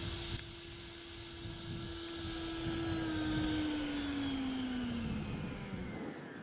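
Electric ducted fan of an FMS Avanti RC jet whining at a steady pitch while on the ground. About halfway in, the pitch falls and the whine fades as the fan spools down.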